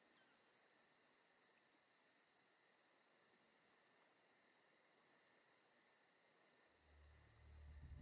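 Near silence: a faint steady hiss with a thin high tone. A low sound begins to swell near the end.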